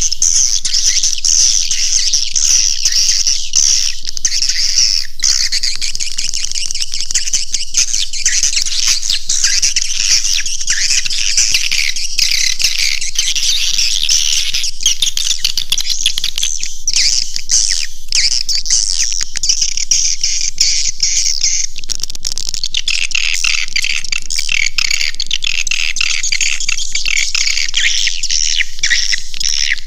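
Swiftlet caller sound: a dense, unbroken, high-pitched chatter of swiftlet chirps, played as a lure to draw swiftlets into a swiftlet house.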